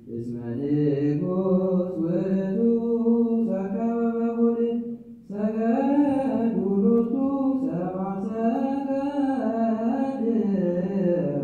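Ethiopian Orthodox liturgical chant in Ge'ez: voices singing long, slowly bending held notes, with a short break about five seconds in.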